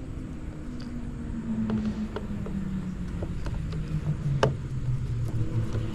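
A motor vehicle's engine running, its low drone sinking slowly in pitch and then rising again, with scattered light clicks and one sharper click about four and a half seconds in.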